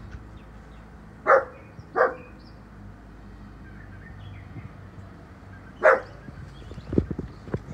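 Bulldog giving three short barks, two close together about a second in and a third near six seconds, with a run of short low sounds near the end.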